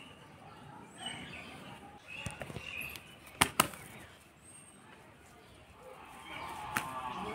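Garden ambience with small birds chirping now and then. Two sharp clicks come close together about three and a half seconds in, and a wavering call rises near the end.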